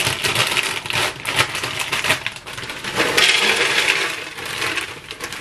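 Cereal pieces pouring out of a plastic bag into a clear plastic dispenser container: a dense rattling patter of many small pieces hitting plastic, with the plastic bag crinkling.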